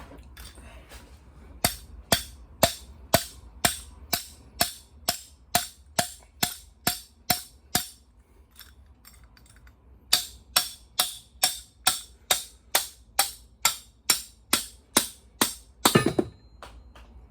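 Hammer striking a bushing to drive it, sharp blows at about two a second in two runs with a short pause between. A louder clattering burst comes near the end.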